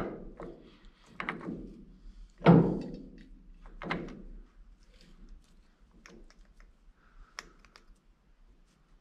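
Steel spider gears and side gear in a Meritor axle's differential case knocking and clicking as they are worked into place by hand. A few dull metal knocks come in the first four seconds, the loudest about two and a half seconds in, followed by lighter clicks.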